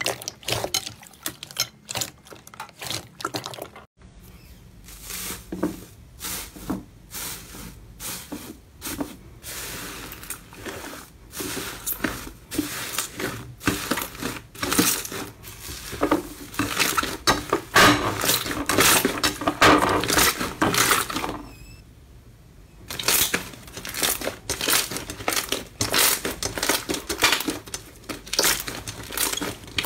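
Hands squeezing and kneading slime: a dense, irregular run of wet clicks, pops and crackles, with a brief lull about three-quarters of the way through.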